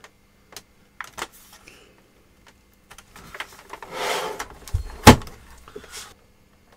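Handling of a Sony VAIO all-in-one PC's plastic case: a few light clicks, a scraping rustle about four seconds in, then a single heavy knock just after five seconds, the loudest sound, followed by a couple of small clicks.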